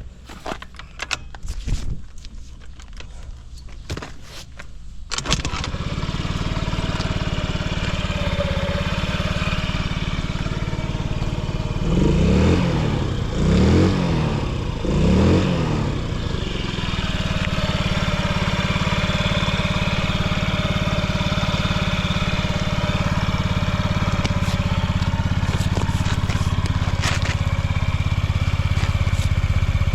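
A few clicks, then a Honda Zoomer (AF58) carbureted 50 cc four-stroke single-cylinder scooter engine starts about five seconds in and idles. It is given three quick throttle blips around the middle, each rising and falling, then settles back to a steady idle, running without any abnormal noise.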